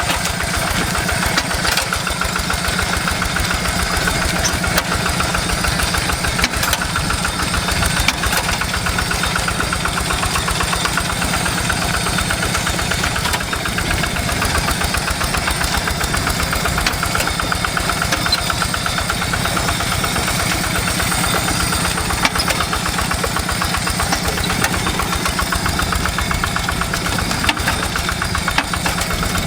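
Two-wheel hand tractor's single-cylinder diesel engine running steadily, a rapid even knocking beat, while it ploughs a wet rice paddy.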